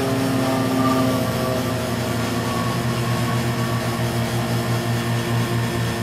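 Carrier central air conditioner outdoor condensing units running: a steady mechanical hum of compressor and fan, with a low drone that pulses evenly about three times a second.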